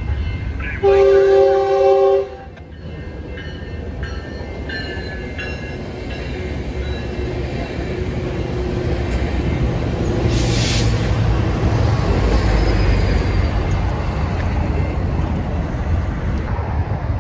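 Train horn sounding one chord-like blast of about a second and a half just after the start. Then a Metrolink commuter train's rumble and wheel noise build as it passes close by, loudest a little past the middle, with a brief hiss about ten seconds in.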